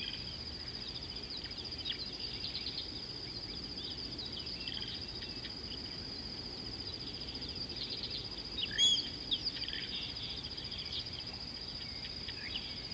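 A steady high-pitched insect trill runs throughout, with small birds chirping on and off in the bush; one chirp about nine seconds in stands out louder.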